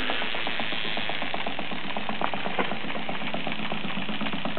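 Cyldon 13/2 toy steam engine with a single-acting piston running steadily under steam: a fast, even ticking of its mechanism over a steady hiss.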